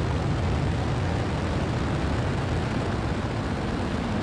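Falcon 9 first stage's nine Merlin engines at full thrust during the climb just after liftoff: a steady, deep rumble.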